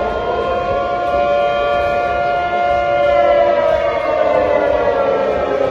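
Civil-defense warning siren sounding one long held tone that slowly falls in pitch over the last couple of seconds, over a steady rushing background noise.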